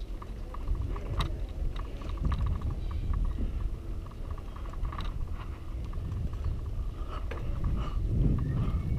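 Wind rumbling on the microphone of a camera moving along a street, growing louder near the end, with runs of rapid light ticking, about ten ticks a second.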